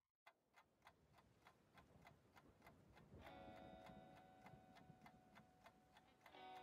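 Faint background music built on a steady ticking beat, about three ticks a second. A sustained chord comes in about three seconds in.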